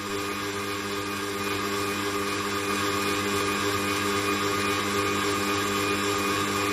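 Electric mixer running at a steady speed, its whisk beating Chantilly cream powder and cold milk in a metal bowl: a steady motor whir that grows a little louder over the first couple of seconds.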